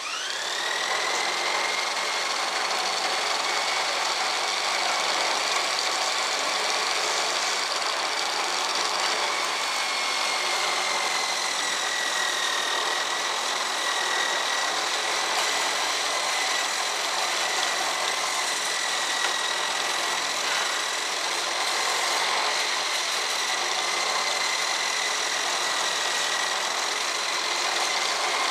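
Electric drill driving a homemade belt sander built from screwdriver shafts and wooden hole-saw pulleys, switched on and running at speed with a steady high whine. The whine rises as it spins up at the start and sags slightly about ten seconds in.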